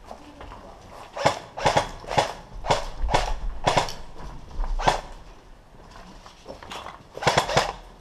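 Airsoft guns firing single shots, about ten sharp pops in an irregular string, some in quick pairs, thinning out after the middle.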